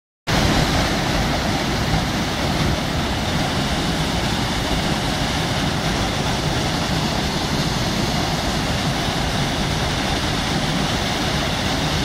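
Small mountain waterfall cascading over rocks into a pool: a steady, loud rush of falling water.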